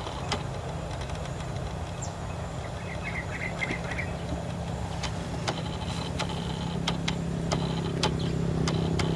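A motor running steadily with a low hum that grows louder toward the end, with scattered sharp clicks and a brief high chirping about three seconds in.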